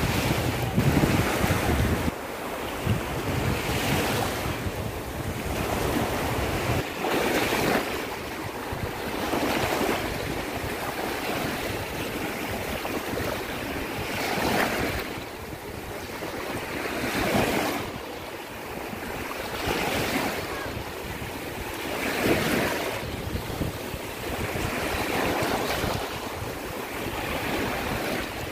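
Small waves washing onto a sandy shore, a new surge every two to three seconds, with wind buffeting the microphone during the first few seconds.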